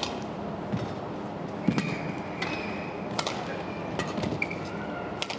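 Badminton singles rally: sharp racket strikes on the shuttlecock about every second and a half, with shoes squeaking on the court mat between shots, over a steady arena crowd murmur.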